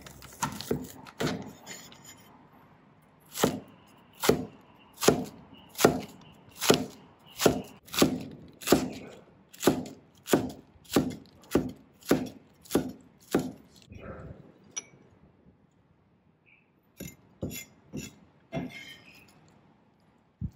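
Chinese cleaver slicing napa cabbage on a wooden cutting board: a few cuts at the start, then a steady run of about fifteen evenly spaced chops, slightly quickening, that stops about two-thirds of the way through. A few lighter knocks follow near the end as the cut cabbage is gathered up with the blade.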